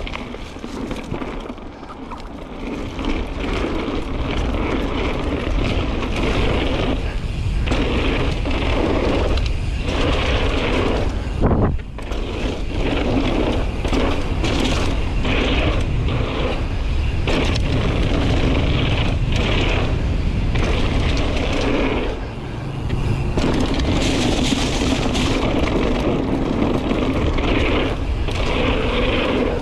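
Mountain bike ridden fast down a dirt trail: heavy wind noise on the microphone and tyres rumbling over dirt and dry leaves, with rattles and knocks from the bike, one sharp knock about twelve seconds in.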